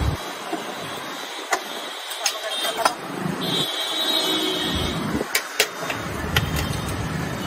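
Fritters sizzling in a kadai of hot oil, with sharp clinks of steel ladles, spoons and bowls scattered through. A low rumble from passing traffic comes back about three seconds in.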